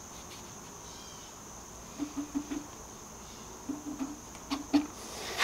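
A piston being pressed by hand down through a tapered ring compressor into an engine cylinder, giving short, light knocks in quick little runs, the loudest near the end.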